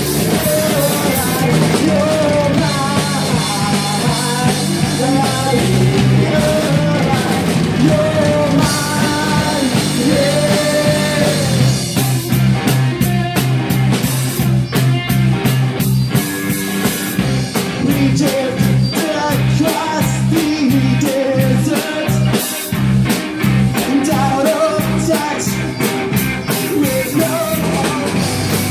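Live rock band playing: drum kit, guitars and a male lead vocal. About twelve seconds in the singing breaks off and the drums come to the front for several seconds, then the vocal returns.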